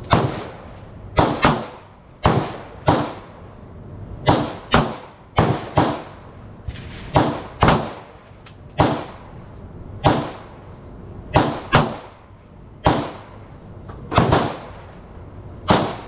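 Pistol firing at a steady, unhurried pace: about twenty sharp shots, unevenly spaced and often two close together, each with a short ringing tail.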